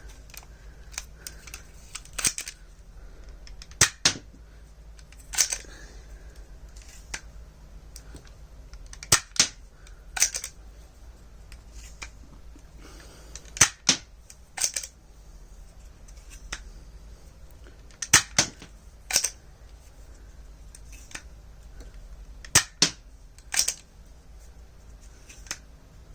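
Cheap spring-powered Dollar Tree foam dart blaster being fired again and again: about a dozen sharp plastic clicks and snaps, often in quick pairs, with pauses of a second or several seconds between shots.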